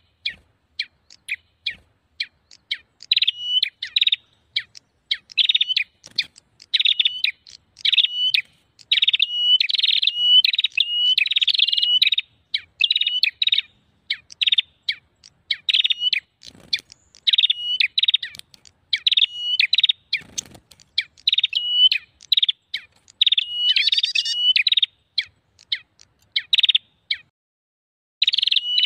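Prenjak songbirds calling in fast, busy strings of sharp, high chirps that come in clusters with short gaps: a prenjak lure-call recording of the excited, noisy kind ("prenjak ribut") used to draw wild prenjak in.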